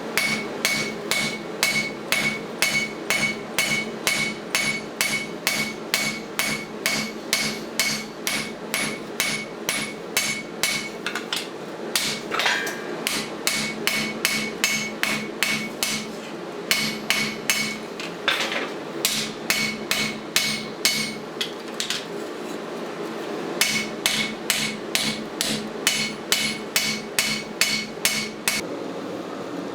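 Blacksmith's hand hammer forging a steel lawnmower blade on an anvil: steady blows about three a second, each with a bright ring. The runs of blows are broken by a few short pauses.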